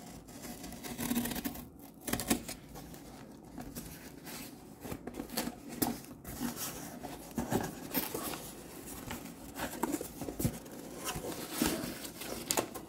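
Folding-knife blade slicing through packing tape on a cardboard shipping box, then the cardboard flaps pulled open: an irregular run of scrapes, rips and rustles.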